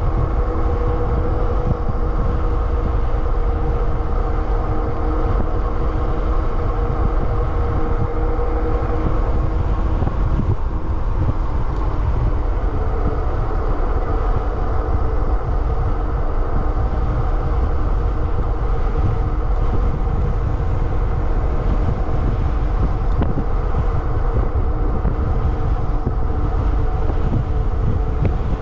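Wind buffeting the microphone on a Super73 RX electric motorbike riding at speed, over a steady whine from its rear hub motor and tyres that shifts slightly in pitch about halfway through.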